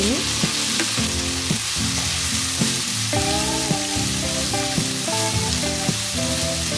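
Chopped tomato and onions sizzling in hot oil in a nonstick pan, stirred with a wooden spatula.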